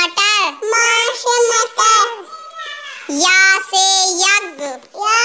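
A child's voice singing the Hindi alphabet, one letter with its word per phrase: 'ma se matar', then about three seconds in, 'ya se yagya'.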